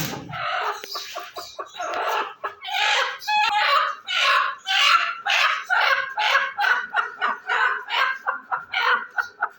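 Chicken clucking and squawking in a rapid run of loud calls, which grow shorter and quicker toward the end.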